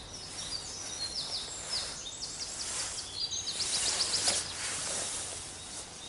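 Several songbirds singing: quick series of high, repeated notes and short trills over a faint steady background hiss.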